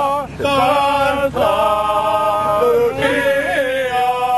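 Men singing an opera piece together without accompaniment, in long held notes with short breaks between phrases.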